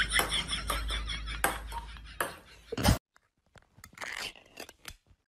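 Table tennis ball clicking off paddles and bouncing, the clicks thinning out and fading over about three seconds. After a sudden cut, a few light clicks and a short rustle as a lid is peeled off a small cup.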